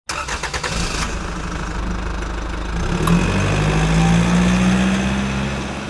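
An engine running steadily, its pitch stepping up a little and growing louder about three seconds in, with a quick run of clicks in the first second.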